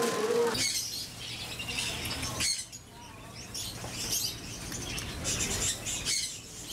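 Many small birds chirping and twittering at once in quick, high chirps, over a low steady hum.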